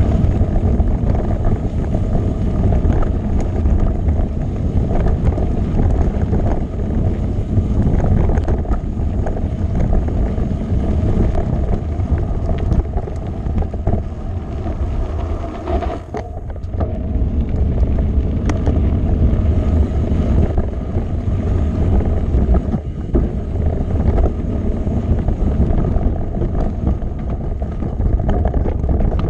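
Mountain bike rolling fast down a gravel and rocky trail: a steady rumble of knobby tyres on loose stones and wind on the microphone, with frequent short knocks and rattles as the bike hits rocks. It eases briefly about halfway.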